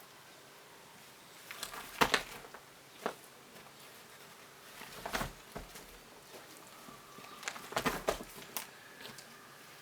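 Irregular clicks and knocks, with the loudest cluster about two seconds in and another run near the end, over a faint steady background.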